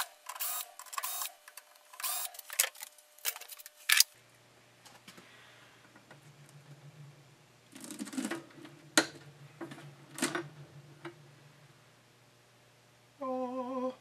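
Cordless drill/driver running in short whirring bursts as it backs the screws out of a plastic electrical enclosure's lid, for about the first four seconds. Then come a few sharp clicks and knocks as the lid is handled and lifted off.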